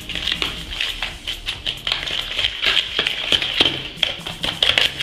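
A fork beating eggs and sugar in a plastic bowl: rapid, uneven clicking and tapping of the fork against the bowl with a wet stirring sound.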